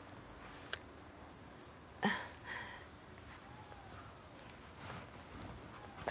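A cricket chirping steadily, a high chirp repeated about three times a second. A sharp click comes about a second in and a short knock with a rustle about two seconds in.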